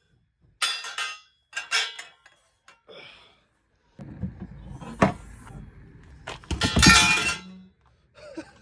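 Dismantled BMX bike parts, metal pieces clinking and clanking as they are handled, a few sharp clinks early on, then a knock and a louder clatter about seven seconds in over a low rumble.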